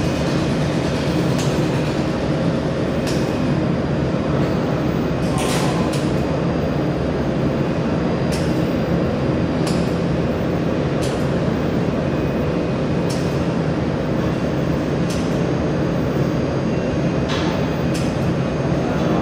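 A 200 W pulsed YAG jewelry laser welder running with a steady machine hum, while single laser pulses fire as sharp ticks at irregular intervals, about a dozen in all.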